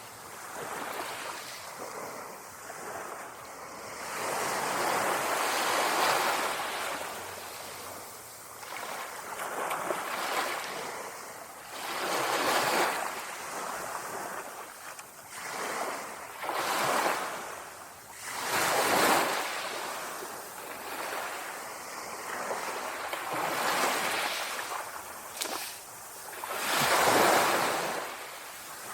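Small sea waves lapping on a shore, each wash swelling and falling away every few seconds.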